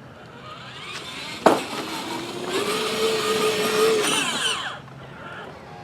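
Electric drive motors and gearbox of a kids' remote-control ride-on toy car whining as it drives. A click about a second and a half in, then the whine rises, holds steady, winds down and stops near the end.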